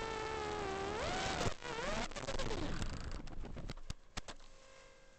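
Brushless motors of a 4-inch FPV racing quad (DYS 1806 2300KV) whining, the pitch sagging and then swinging up sharply about a second in as the throttle changes. Half a second later the whine breaks off and turns ragged, followed by a few sharp clicks and knocks as the quad crashes, and the sound drops away near the end.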